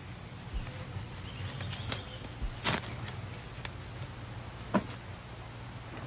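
Quiet outdoor ambience: a few short soft rustles and clicks, with a faint high insect-like tone, over a steady low hum.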